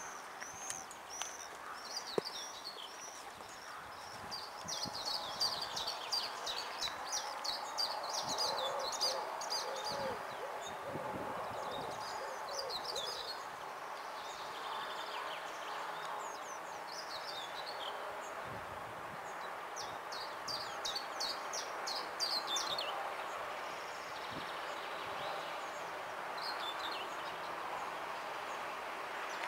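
Small birds chirping and singing in repeated short phrases over a steady background hiss.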